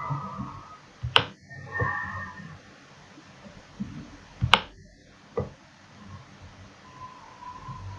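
A few sharp computer mouse clicks, the loudest about a second in and about four and a half seconds in, over low background noise.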